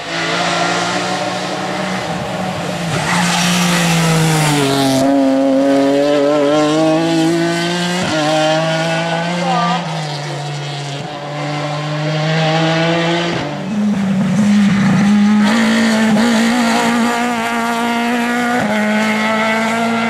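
BMW E46 3 Series rally car at full throttle, the engine note climbing and then dropping at each gear change several times over. About two-thirds of the way through the sound changes suddenly to a second rally car revving hard.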